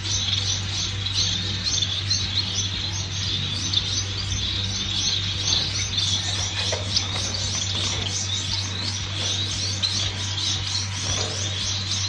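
A cage of zebra finches chirping: many short, high calls overlapping, several a second, without a break. A steady low hum runs beneath.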